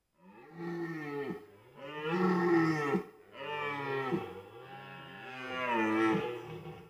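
Red deer stag roaring in the rut: a run of deep, drawn-out roars in quick succession, each rising and falling in pitch, the loudest near the middle and toward the end.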